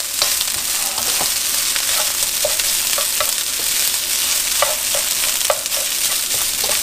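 Rice and garlic sizzling in hot oil in a wok, with a metal spatula scraping and tapping against the pan in short strokes as the rice is stirred and its clumps broken up.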